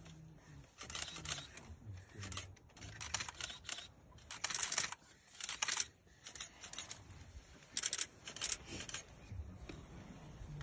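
Digital SLR camera shutters clicking in quick bursts of rapid-fire shots, several short runs, the longest about halfway through.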